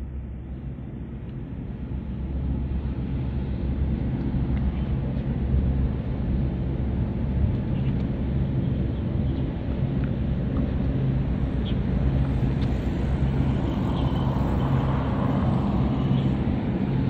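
Low, steady drone of a large LPG tanker's engine and propeller as the ship passes close by, growing louder over the first few seconds and then holding.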